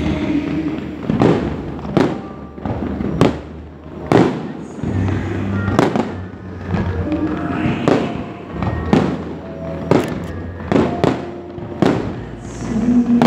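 Aerial fireworks bursting in quick succession, a sharp bang about every second, over background music.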